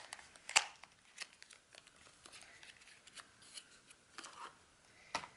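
Faint scattered clicks and scratchy rustling from the packaging of a Tarte contour and highlighting palette being opened by hand, with sharper clicks about half a second in and near the end.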